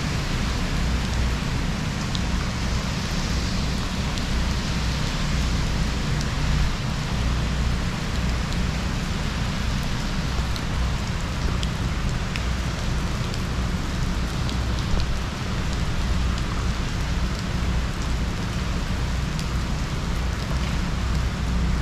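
Heavy tropical-storm rain pouring steadily onto a pool and its screened patio, with scattered drop ticks over a constant low rumble of wind.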